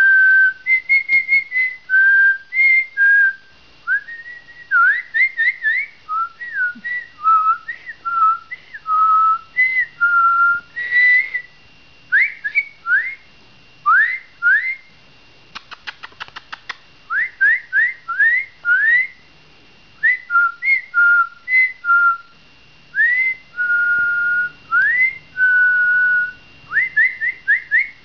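A person whistling a long series of short notes, many of them quick upward slides and some held steady tones, in bursts with brief pauses. A quick run of clicks comes about halfway through.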